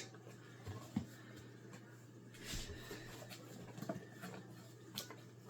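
Faint handling noises from an opened box of packaging: a few light clicks and knocks, with a brief rustle about halfway through.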